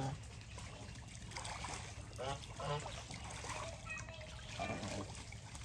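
Geese giving a few short calls, about two seconds in and again near the end, over the trickle and splash of water.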